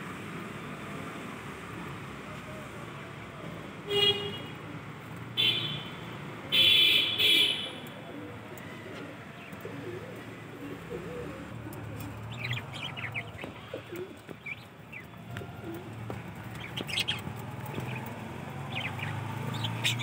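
Caged budgerigars calling: three loud calls between about four and seven and a half seconds in, then many quick, quieter chirps through the second half.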